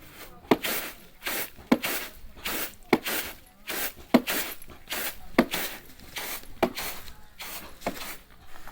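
Rice being threshed by hand: bundles of rice stalks beaten against a hard surface. Seven sharp thwacks come at a steady pace of about one every 1.2 s, each with a rustling swish of stalks between the strikes.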